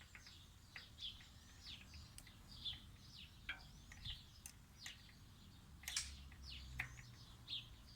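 Small birds chirping faintly in the background: a steady run of short, falling, high-pitched chirps, two or three a second, with a couple of faint clicks.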